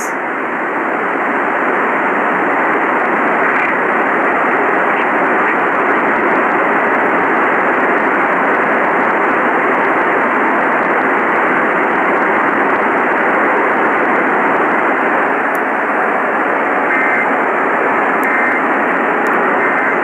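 Steady hiss of AM radio static through a portable receiver's small speaker, cut off above and below like telephone-band audio. Near the end three faint short bursts sound under the hiss, like EAS data tones.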